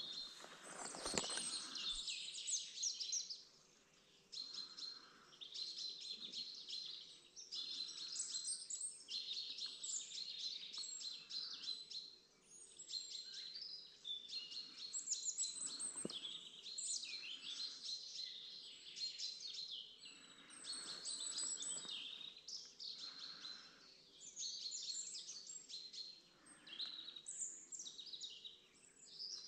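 Songbirds singing in the open, phrase after phrase with short pauses between them, several songs overlapping. A brief rustle near the start.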